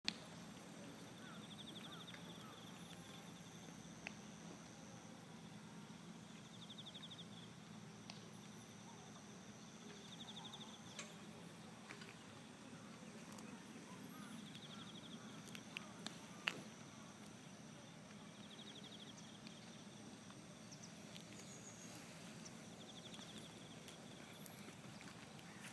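Faint outdoor lakeside ambience with a short, high, rapidly pulsed trill that repeats every few seconds, and a few faint scattered clicks.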